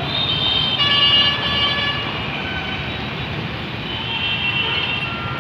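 Bus-stand traffic: a bus engine running among passing vehicles, with vehicle horns sounding, loudest about a second in and again near the end.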